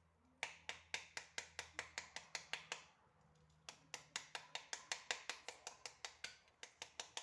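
Rapid taps on the rind of a cut pomegranate, about five a second, knocking the seeds loose: a run of about a dozen taps, a pause of about a second, then a second longer run.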